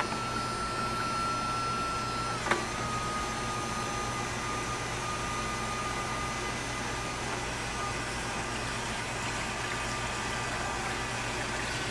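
Battery-powered submersible pump motor of an Ivation portable shower running in a bucket of water, a steady high whine over a low hum as it pumps water out through the shower head. About two and a half seconds in there is a single click, after which the whine settles slightly lower in pitch.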